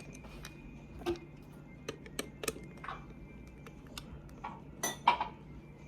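Irregular light clicks and taps of plastic toy parts and a screwdriver being handled while a toy train is taken apart, with a sharper click about five seconds in.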